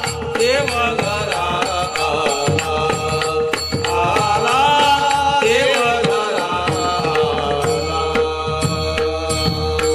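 Varkari bhajan: devotional singing in an ornamented, bending melodic line over a steady held drone, with regular percussion strikes keeping time.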